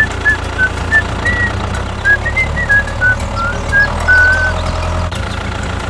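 Steady low rumble of a small vehicle engine, with a simple tune of short high notes over it.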